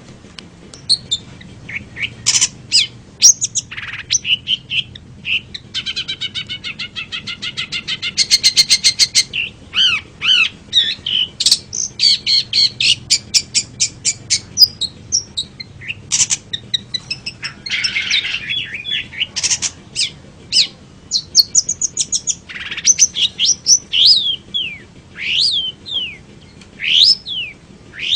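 Long-tailed shrike singing a varied, busy song of short chirps and harsh notes, with a fast buzzy rattle of repeated notes a quarter of the way in and quick falling whistled notes toward the end.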